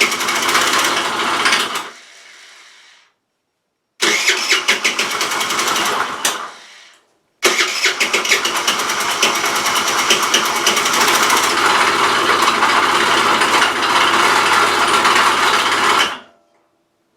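Rex RS500 scooter engine being started: it runs briefly and dies twice, then catches and runs steadily for about nine seconds before stopping suddenly. It runs with a rattle, which the owner hears as not normal and suspects comes from the crankshaft or the valves.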